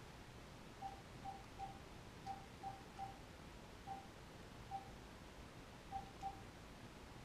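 Phone keypad tones as a phone number is dialed by hand: about ten short beeps of one pitch, tapped at an uneven pace.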